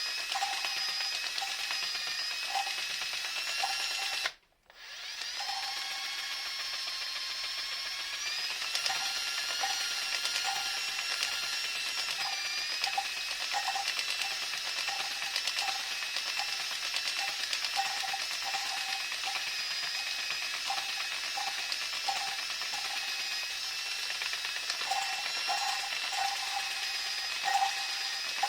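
Electric drill driving an oscillating valve-lapping attachment, its motor whining steadily and shifting pitch a few times, while the mechanism clicks quickly and unevenly ("tac, tac, tac") as it laps a valve into its seat with coarse lapping compound. The sound cuts out briefly about four seconds in.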